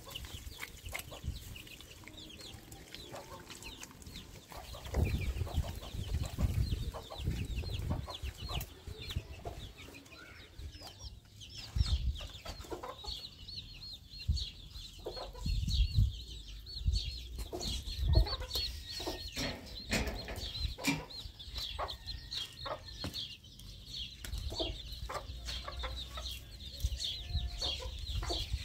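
Chickens clucking, with quick, repeated high chirping that grows thicker about halfway through. Under it come scattered dull thuds and scrapes of wet mud being patted and worked by hand.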